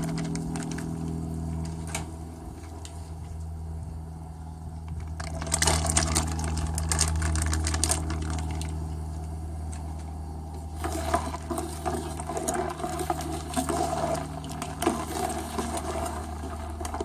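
Frozen crab being poured into a large pot of nearly boiling sauce: liquid splashing and sloshing, strongest from about five and a half seconds in and again from about eleven seconds, over a steady low hum.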